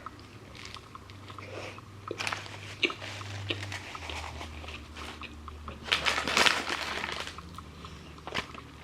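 Close-up eating sounds: chewing and biting with scattered small crunches and crackles, and a louder crunching burst about six seconds in.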